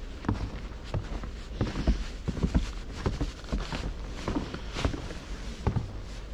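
Footsteps crunching in snow on a snow-covered footbridge: irregular soft knocks, a couple a second, over a steady low rumble.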